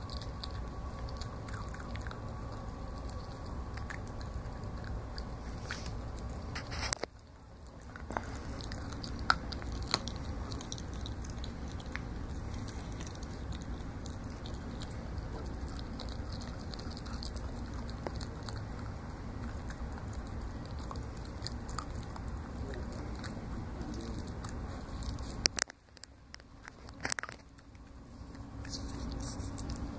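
Donovan Pinscher puppy chewing and crunching a raw chicken neck, with wet chewing and a few sharp cracks of bone, over a steady low hum.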